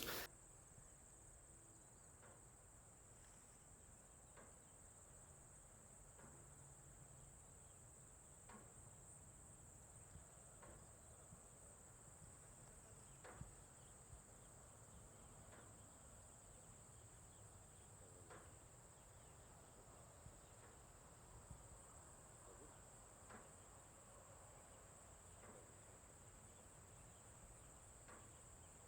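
Near silence: faint room tone with a steady, thin high-pitched whine and a few faint ticks.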